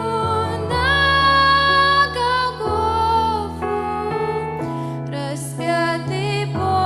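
Slow hymn music: a held, wavering melody line over piano or keyboard accompaniment with low bass notes changing every second or two.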